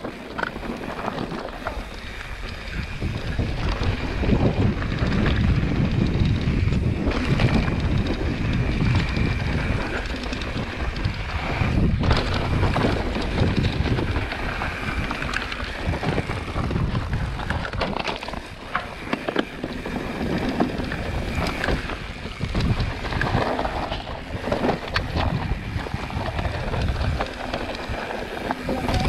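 Wind buffeting the camera microphone over the rumble of a Scott Ransom full-suspension mountain bike's tyres on a rocky dirt trail during a descent. Scattered knocks and rattles run through it as the bike goes over bumps.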